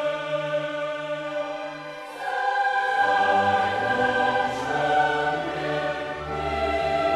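Background choral music: a choir singing held chords that change about two seconds in, with a lower part coming in about three seconds in.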